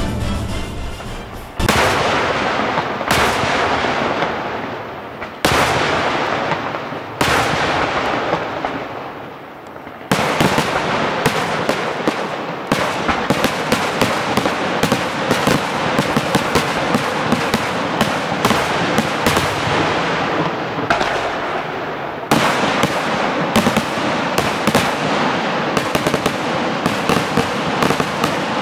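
Aerial fireworks display: single shell bursts a couple of seconds apart, each a sharp bang followed by fading crackle, then from about ten seconds in a dense barrage of rapid bangs and crackling.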